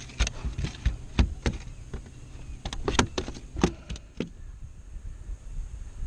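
Irregular knocks and taps against a plastic kayak as a caught fish loose in the boat is hunted for and grabbed; the knocks die away after about four seconds.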